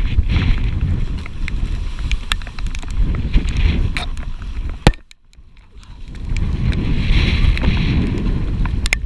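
Wind buffeting the microphone aboard a sailing catamaran under way, with swelling rushes of water noise and a few sharp clicks; the sound drops away for about a second in the middle, then returns.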